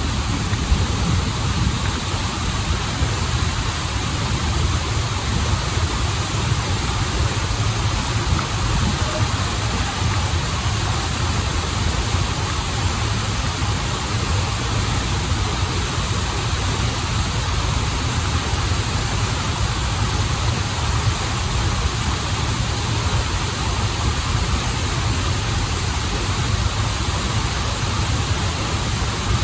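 Waterfall and stream water rushing steadily and without a break, a deep low rumble under a bright hiss.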